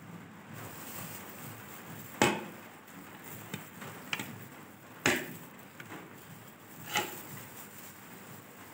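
Hinged metal hand-held lemon squeezer clacking as lemons are juiced over a ceramic plate: three sharp knocks a few seconds apart, with a few lighter clicks between.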